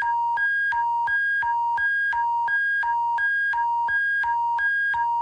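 Synthesized two-tone alert signal, a lower and a higher electronic tone alternating evenly about every 0.4 s, over a low steady hum.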